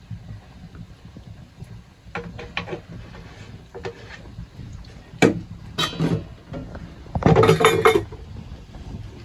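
Metal pots, lids and utensils clinking and knocking together as they are handled, in a few separate knocks, with a loud clatter of about a second near the end.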